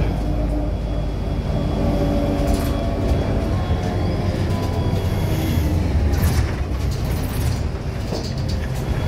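Jelcz M121I Mastro city bus heard from inside the passenger saloon while driving, with a steady low engine and road rumble and a few short knocks from the body. It goes a little quieter near the end.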